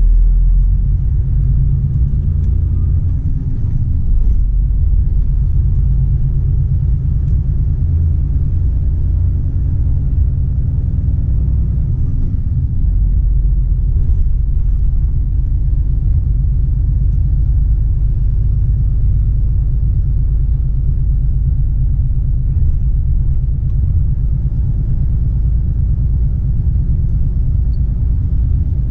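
Volvo FH 460 truck's 13-litre six-cylinder diesel engine running on the move, a steady low rumble.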